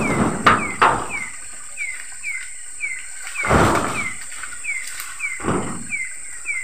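Night chorus of tropical wildlife: a steady high insect whine with a rapid train of short falling chirps, about three a second. Three short noisy rustling bursts break in, one soon after the start, one in the middle and one near the end.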